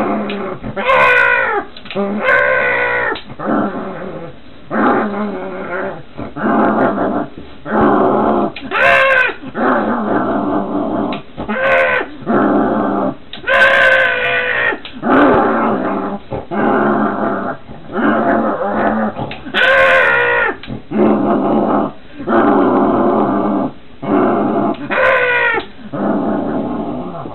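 A dog growling and barking in a long run of short pitched bursts, roughly one a second with brief gaps, some rising and falling in pitch.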